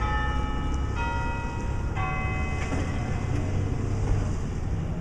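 Clock tower bells of Duluth's Old Central High School chiming at ten o'clock: notes of differing pitch struck about once a second, the last about two seconds in and ringing out briefly, over a steady low rumble.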